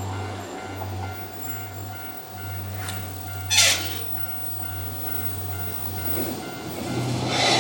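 Railway level crossing warning bell ringing in a steady rapid repeat. A short, loud burst of noise comes about three and a half seconds in, and near the end the rush of an approaching train builds up over the bell.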